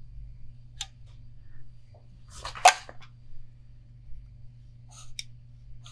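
Small handling sounds of hand tools at a rod-wrapping bench: a light click, then one louder short scrape or clatter about halfway through, then a couple of small ticks, over a steady low hum.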